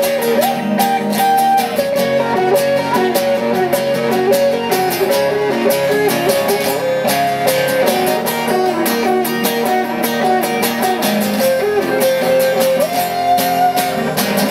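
Two acoustic guitars, one strumming chords while the other plays a lead solo of quick single-note runs, holding a long note near the end.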